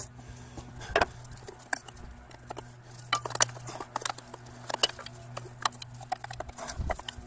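Scattered light metallic clicks and knocks of hand tools and engine parts being handled, spaced irregularly, over a steady low hum.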